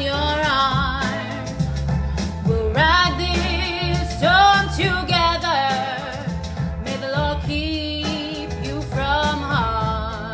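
Pop song: a woman singing long, held notes with vibrato over a steady backing beat.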